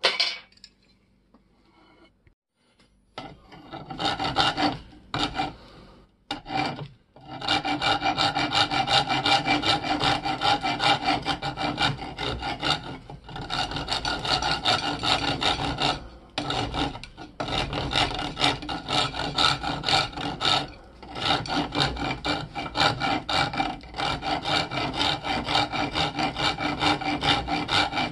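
A hand file rasping back and forth along the rusty haft of an antique hammer axe. A few separate strokes come about three seconds in, then from about seven seconds in fast, steady strokes with a few short pauses.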